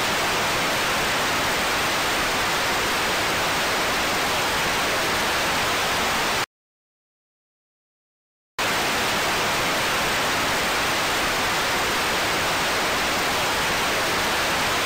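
Television static: a loud, even hiss that cuts off abruptly to dead silence about six and a half seconds in, then comes back just as suddenly about two seconds later.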